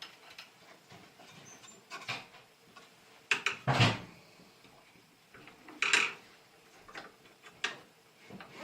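Scattered clicks and clunks of a sliding compound miter saw being adjusted and a board shifted on its table, the motor not running. The loudest is a cluster of knocks with a low thud about three and a half seconds in, with another clunk about six seconds in.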